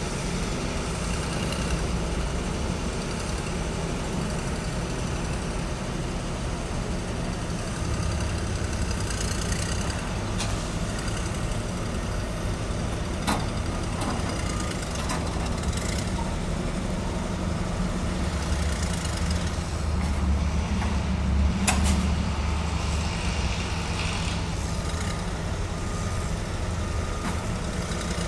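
Heavy diesel truck engines running with a steady low rumble that swells twice, with a few sharp knocks, one about halfway through and another in the second half.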